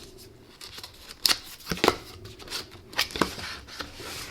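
Cardboard lens box and its packaging being handled and opened: rustling with several sharp taps and clicks, the strongest between one and two seconds in and again about three seconds in.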